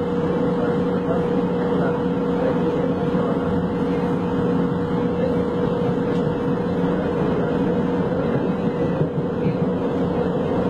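Interior of a Tren Ligero light-rail car running: steady rumble of the car on the track with a constant hum held throughout.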